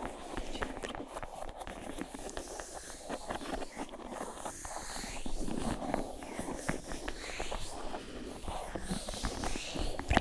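Close-miked, layered ASMR trigger sounds: many quick small taps and clicks over soft rustling and scratching.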